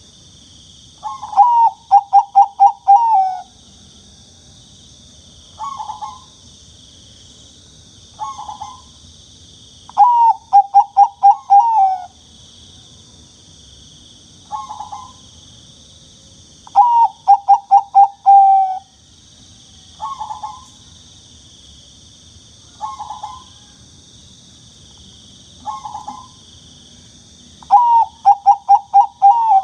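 Zebra dove (perkutut, Bangkok strain) cooing: four full songs of rapid staccato coos each ending in a longer drawn-out note, with short single coos between them. A steady high hiss runs underneath.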